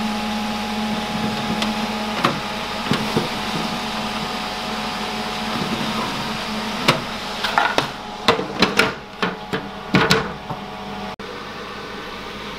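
Excalibur food dehydrator running with a steady fan hum, while its plastic mesh trays are handled and slid in and out, giving several clicks and knocks, most of them between about 7 and 10 seconds in.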